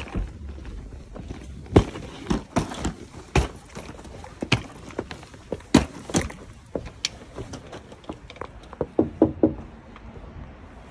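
Irregular footsteps and knocks as a person carrying a backpack walks up outdoor steps, with a quick run of knocks near the end.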